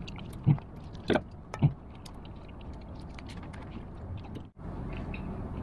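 Close-miked chewing and mouth sounds of a man eating a soft chocolate brownie, with three sharp smacks in the first two seconds and small wet clicks throughout. The sound cuts out for an instant about four and a half seconds in.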